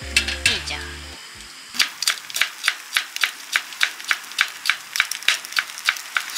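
Background music for about the first second, then a knife chopping steadily on a cutting board, three or four sharp chops a second.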